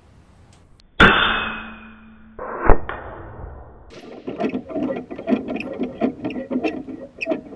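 A PCP air rifle shot about a second in, with a ringing decay. Near the three-second mark comes a sharp metallic smack, the loudest sound: a pellet striking a steel spinner target. A run of rapid clanks and rattles follows as the spinner swings.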